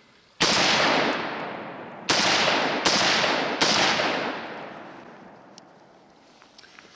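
Four shots from a .300 Blackout AR pistol: one, a pause of nearly two seconds, then three more in quick succession, each with a long echo that fades away over a few seconds.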